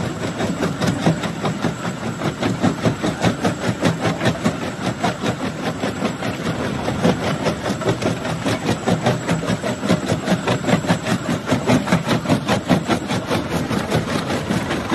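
Rock crusher breaking stone: a dense, continuous run of knocks and crunches, several a second, over the steady run of the machine.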